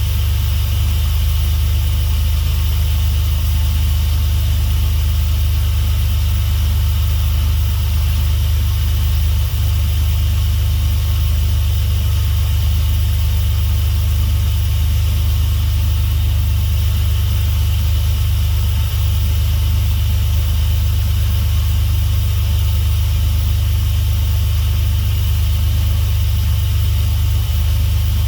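Dodge 3.7-litre V6 idling steadily on its first run after a new reluctor ring was fitted, running without coolant in it.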